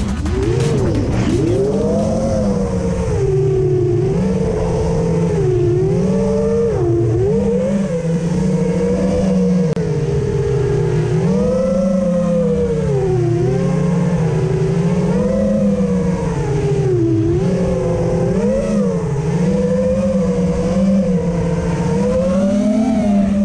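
FPV racing quadcopter's motors and propellers whining close up, the pitch rising and falling constantly as the throttle changes in flight. The tail of electronic music with a beat fades out about two seconds in.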